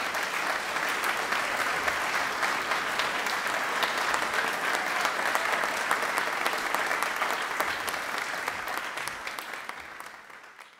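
Audience applauding, a steady crowd of hand claps that fades out near the end.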